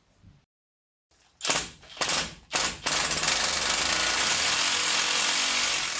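Handheld power tool working on a snapped bolt: three short blips of the trigger, then a steady run of about three seconds.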